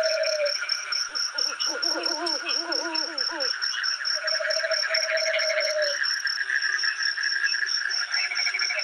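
Forest chorus of insects and frogs: a steady high chirp about six times a second over a constant trill, with humming calls that come and go. A short burst of wavering calls starts about a second in and lasts about two seconds.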